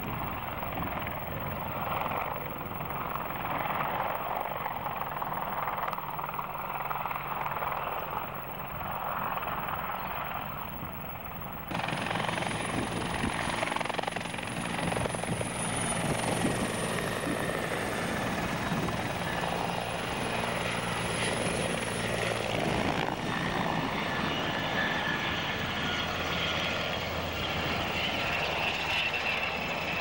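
Military helicopters flying low past, one after another. First comes an AH-64 Apache's rotor and turbine noise. After an abrupt change about twelve seconds in, two CH-146 Griffons pass with a steady rotor beat and a high, even turbine whine. In the last several seconds a UH-60 Black Hawk passes close, its turbine whine slowly falling in pitch.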